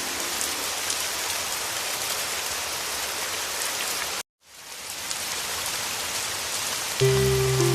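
Steady heavy rain hiss that cuts out abruptly about four seconds in and fades back within a second. Near the end, soft music with low held notes comes in under the rain.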